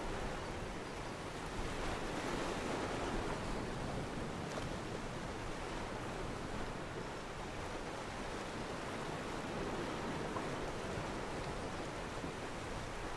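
Sea waves and surf, a steady, unbroken wash of noise.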